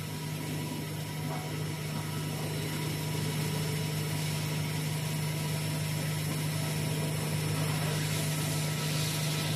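Machinery running with a steady low hum and a constant noisy wash, with no starts, stops or separate knocks.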